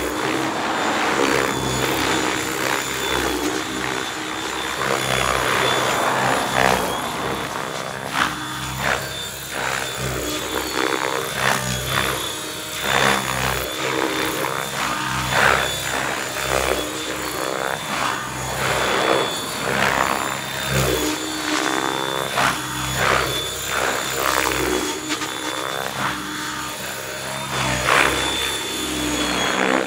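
Mikado Logo 600 electric RC helicopter in flight, its Pyro 650 brushless motor giving a steady high whine under rotor blade whoosh. The whoosh swells and fades over and over as the helicopter swoops and turns.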